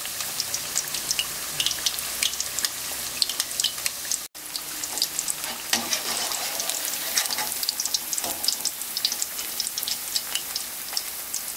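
Battered pumpkin and pumpkin-seed fritters deep-frying in hot oil in a wok: a steady sizzle with frequent crackling pops. The sound breaks off briefly about four seconds in.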